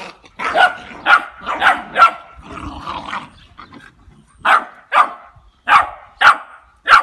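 Labrador retriever puppies about ten weeks old barking in play, a string of short, high yaps: four quick ones in the first two seconds, then five more spaced about half a second apart near the end.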